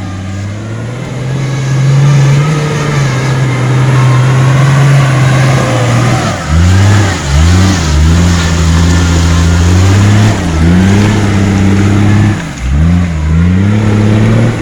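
A 4x4 vehicle's engine revving hard as it tries to climb a muddy road. The revs hold high for several seconds, then from about six seconds in drop and surge again about five times, as the car struggles for grip in the mud.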